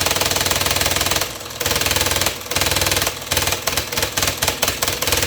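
Old variable-speed scroll saw running, its blade mechanism clattering rapidly up and down. It drops out briefly a few times, and near the end it stutters on and off in quick succession.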